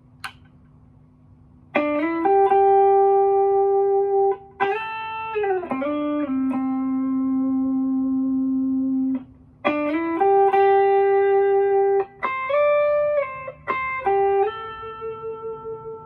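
Yamaha SG electric guitar with OPG-1 pickups, played with a clean tone: a slow melodic line of long sustained single notes joined by slides and string bends, starting about two seconds in. The tone is bright and slightly hard, which the player hears as "young", with an almost acoustic ring.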